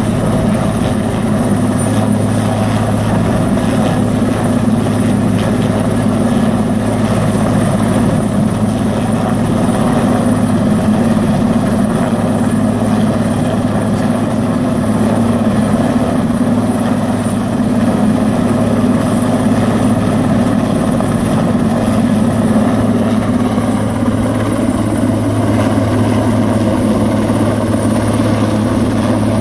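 Helicopter hovering with an underslung load on a long line: a loud, steady rotor and turbine sound with a constant low hum.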